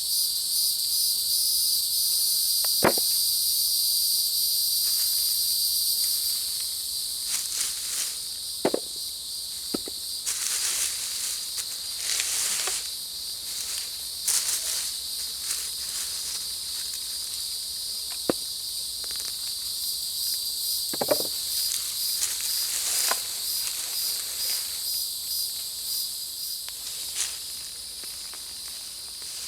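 Insects buzzing steadily at a high pitch, loudest in the first few seconds, over scattered snaps, clicks and rustles of hands digging potatoes out of mulch and soil.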